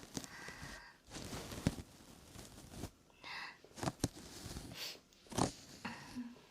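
Scissors snipping through synthetic wig hair, close to the microphone: a run of crisp snips and brushing swishes at irregular intervals, about six or seven in all.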